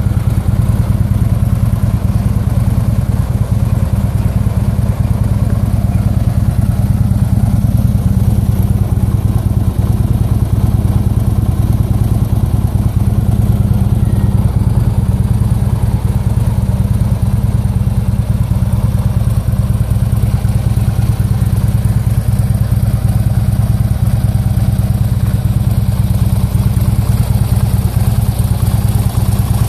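2011 Harley-Davidson Ultra Classic's air-cooled V-twin engine idling steadily, with no revving.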